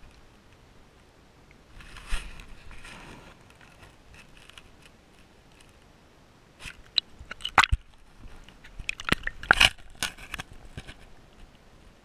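Crunching, crackling scrapes and sharp clicks against a waterproof camera housing on a sandy creek bed underwater, in a short cluster about two seconds in and a louder, longer run from about six and a half to eleven seconds in.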